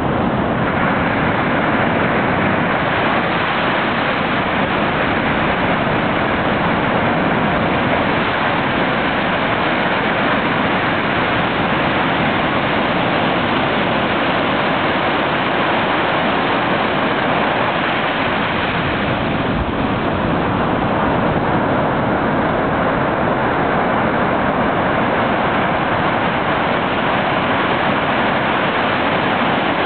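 Ocean surf breaking and washing up a sandy beach: a loud, steady rush of waves.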